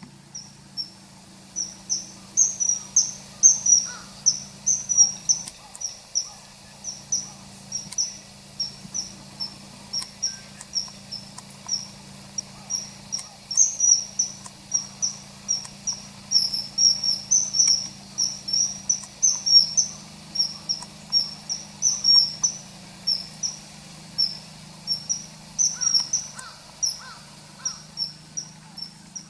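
Common kingfisher calling: a long series of short, sharp, high-pitched notes, about two a second. A faint steady low hum lies underneath.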